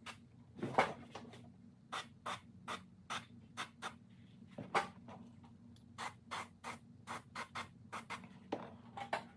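Airbrush spraying in short, quick bursts, about two or three a second, as a light base coat of paint goes onto a lure, over a steady low hum. A louder knock comes about a second in.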